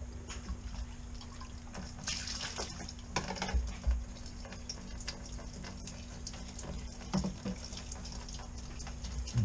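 Gasoline splashing and dripping as the clear bowl of a Marpac outboard fuel filter is unscrewed and lifted off the filter head, with a few short plastic clicks from handling; the splashing is strongest about two to four seconds in.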